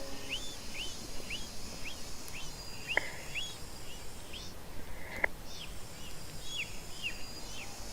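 Forest ambience: a bird repeats a short descending chirp about twice a second over a light high hiss, with a few sharp ticks.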